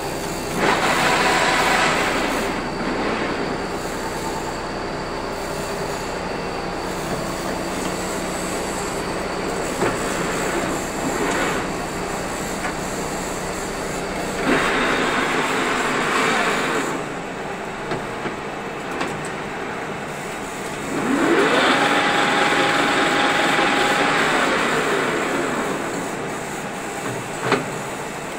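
A 16K20 screw-cutting lathe, just out of a full overhaul, running with a steady whir from its headstock and feed gears. The sound grows louder in spells while the control levers are worked and the carriage is driven along the bed, once with a rising whine.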